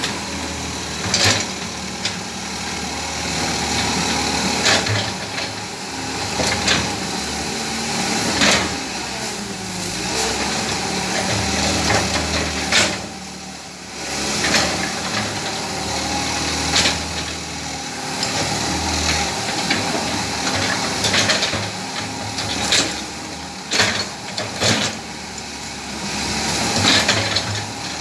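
Hydraulic excavator's engine running steadily, with irregular sharp knocks and cracks scattered through it.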